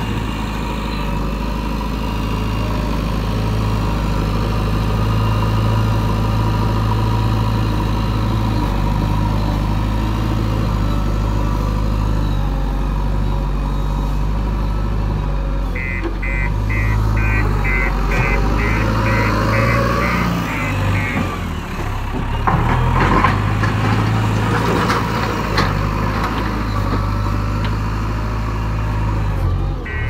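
A JCB 3DX backhoe loader's diesel engine running steadily throughout. A reversing alarm beeps about three times a second for several seconds past the middle and starts again near the end. A few knocks come between the two runs of beeps.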